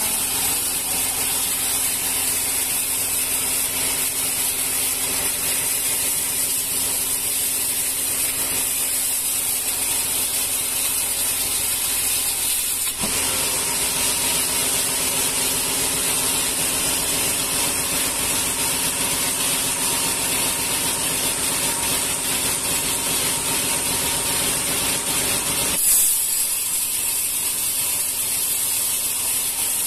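Band sawmill running, its blade cutting lengthwise through a rengas log with a steady hiss over the machine's hum. There is a brief click about 13 seconds in. About 26 seconds in comes a short louder burst, after which the deep hum drops away.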